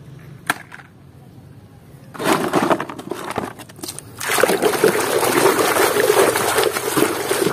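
Water splashing and sloshing in a plastic basin as a toy truck is scrubbed by hand in foamy, muddy water. Near the start there is a single click. The splashing begins about two seconds in, and from about four seconds it becomes continuous, louder sloshing.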